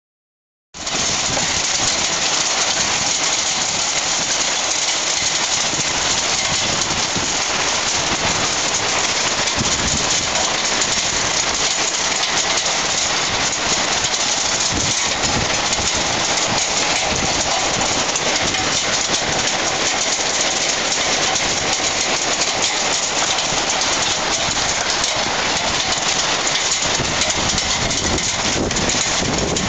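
Heavy hail pelting a high-rise apartment balcony: a dense, steady clatter of hailstones striking the floor, the metal railing and the objects on it. It starts abruptly about a second in.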